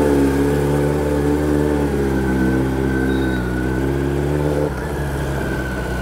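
Kawasaki ZX-10R's inline-four engine running at a steady, even pitch. Its note becomes noticeably quieter about three-quarters of the way through.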